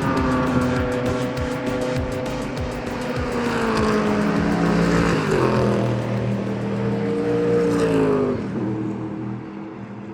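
Several race car engines running at speed on a track, their pitch falling as they pass, fading near the end.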